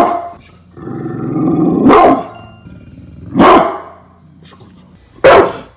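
A dog growling, the growl building for about a second and breaking into a loud bark, followed by two more loud barks.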